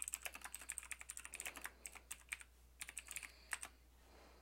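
Computer keyboard typing: a quick run of keystrokes for about the first second and a half, then two shorter runs, stopping shortly before the end.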